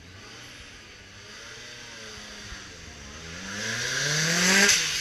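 Lancia Delta S4 rally car's twin-charged four-cylinder engine launching from the start line: revs held at first, then about three seconds in it pulls away hard, the pitch climbing steeply and loudly as it accelerates past, with a dip in pitch near the end before it climbs again.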